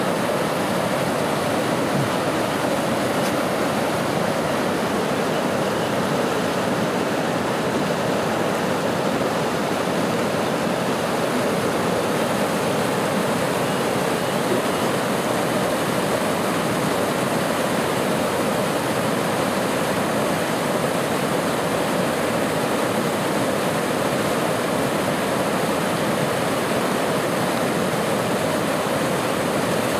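Floodwater rushing steadily across a road: a loud, constant noise of fast-moving water.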